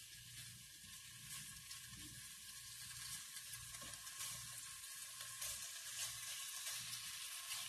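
Strips of bacon sizzling as they start to fry in a skillet, the sizzle growing louder as the pan heats, while tongs move the strips about.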